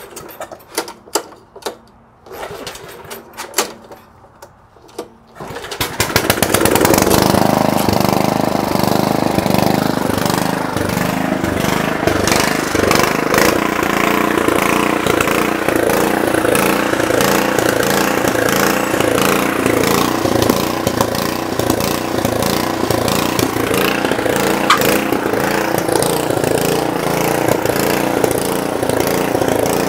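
Small engine of a 1986 Troy-Bilt rear-tine tiller being pull-started, with a few short pulls on the recoil starter. It catches about five and a half seconds in and then runs steadily.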